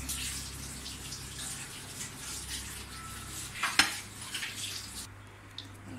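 Cooking oil being poured into a non-stick karahi on a gas stove, over a steady hiss, with a sharp metallic clank of pan or bottle a little under four seconds in.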